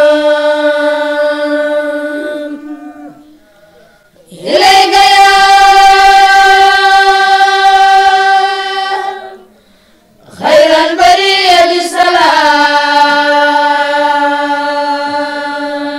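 Group of boys chanting Quranic verses in unison, in long drawn-out held notes. A phrase fades out early on, then two more long phrases follow after short pauses; the last wavers in pitch near its start.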